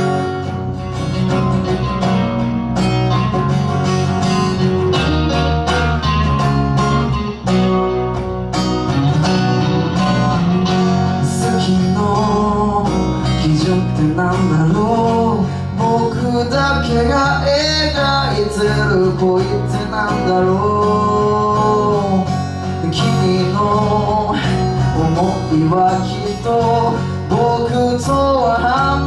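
Live rock band playing a song: strummed acoustic guitar, electric guitar and electric bass, with a sung vocal melody over them.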